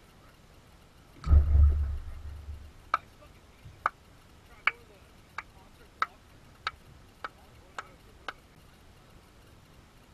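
A heavy thump with a low rumble about a second in, then about nine sharp clicks that come quicker and fainter. It fits a pitched wiffle ball striking the PVC strike-zone target right by the camera and then dropping and bouncing on the ground.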